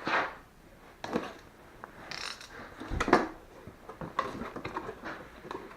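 Cardboard box and packaging of an LED work light being handled and opened: a series of knocks, scrapes and rustles, the loudest a knock about three seconds in.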